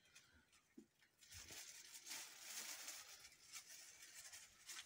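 Faint rustling and squishing of hands rubbing spice masala into raw fish pieces on a steel plate, with light handling of a plastic bag, from about a second in.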